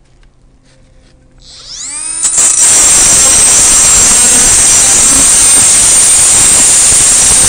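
Cordless Milwaukee FUEL angle grinder spinning up with a rising whine about a second and a half in, then running loudly and steadily at full speed as its disc grinds the top of a copper earth rod.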